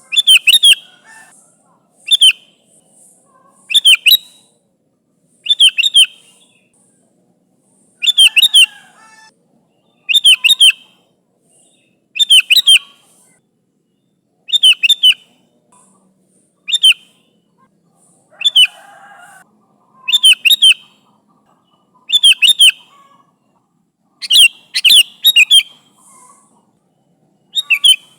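Sooty-headed bulbul singing: short, bright, quickly rising and falling phrases, repeated about every two seconds.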